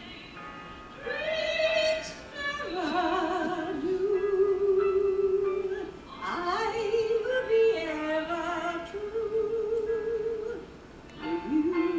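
A woman singing a show tune in an operatic style with a wide vibrato, holding long notes. There is a brief pause about halfway through and another near the end.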